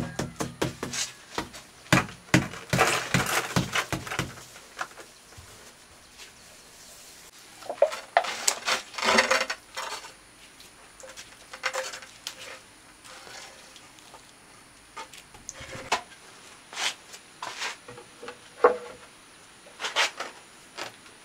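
Hard objects clinking, tapping and scraping in tile and tool work: a dense run of taps over the first few seconds, another around eight to ten seconds in, then scattered single knocks.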